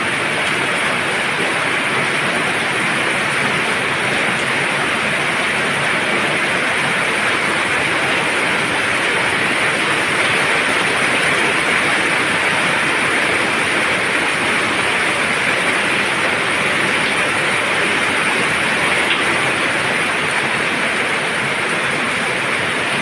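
Heavy rain falling steadily, an even rushing hiss that does not let up.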